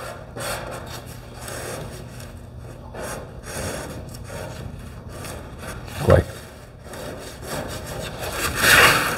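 Drawing strokes scratching across a sketch surface, in a run of short, uneven strokes about one or two a second. There is a brief sharper sound about six seconds in and a louder, longer scratch near the end.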